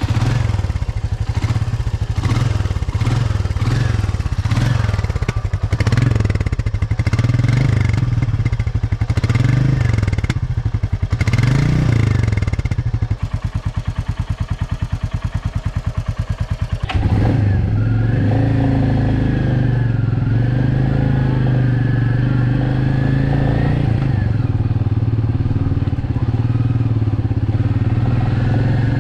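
Royal Enfield Meteor 350's single-cylinder 349 cc engine, just started, revved up and down again and again for the first dozen seconds, then idling with an even beat. About seventeen seconds in it gets louder and runs steadily as the bike is ridden.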